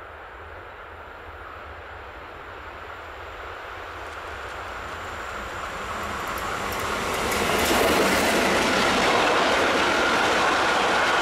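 Train approaching, growing steadily louder for about eight seconds, then passing close with a steady loud rush of wheels on the rails.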